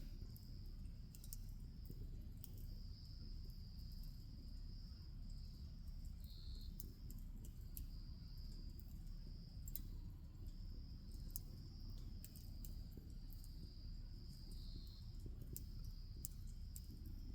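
Bonfire crackling with scattered small sharp pops, over a steady low rumble. Insects trill in high, broken phrases throughout.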